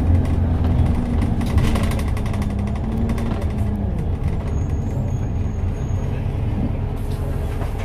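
Interior of an Optare Solo SR single-deck bus on the move: diesel engine drone and road noise, the engine note dropping a little over halfway through as the bus eases off.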